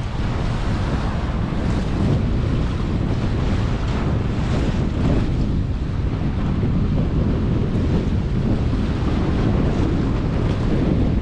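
Wind buffeting the microphone over the steady rush of choppy sea water. The wind rumble is the loudest part.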